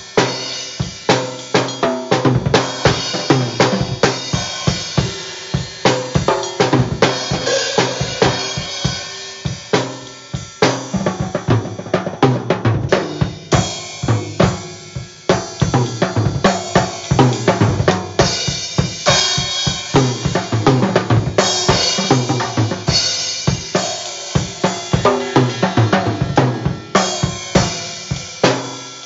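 Acoustic drum kit played continuously with sticks: rapid snare and bass drum hits under cymbal strikes.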